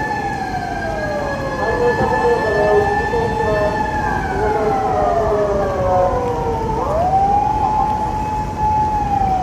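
A siren wailing, its pitch rising quickly and then falling slowly, with successive wails overlapping; it is loud.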